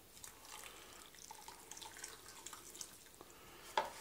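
Blood pouring from a glass measuring jug onto cooked rice and pearl barley in an aluminium pan: faint dripping and pattering. A single knock near the end.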